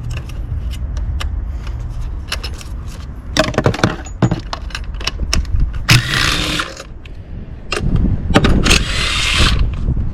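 Hand tools and metal parts clicking, clattering and scraping while working on a BMW M54 six-cylinder engine's spark plugs, with two longer rasping bursts about six seconds in and near the end.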